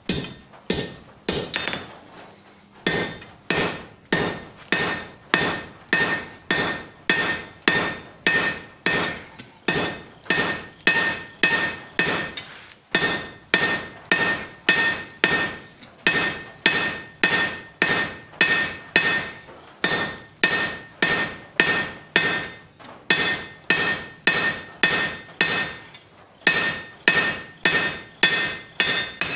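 Blacksmith's hand hammer striking a red-hot bar on an anvil in a steady rhythm of about two blows a second, each blow followed by a short metallic ring. It pauses briefly a few times.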